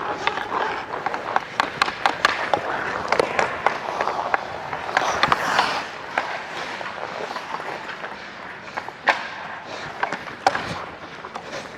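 Ice skates scraping and carving on a rink, with sharp clacks of sticks and puck scattered throughout, heard from a player's body mic. A longer hissing scrape swells about five seconds in.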